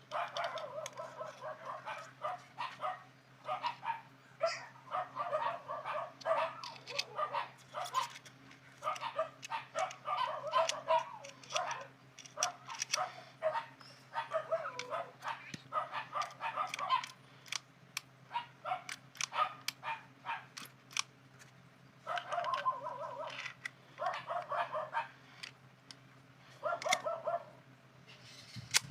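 A dog barking and yipping in repeated bouts, with sharp clicks scattered among the barks.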